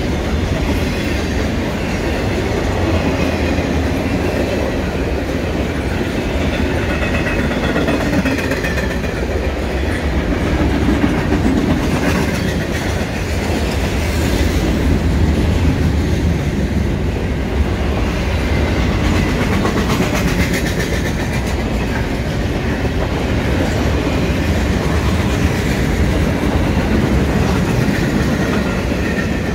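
Double-stack intermodal freight train of container-laden well cars rolling past close by: a steady rumble of steel wheels on rail, with occasional sharp clacks as wheels cross rail joints.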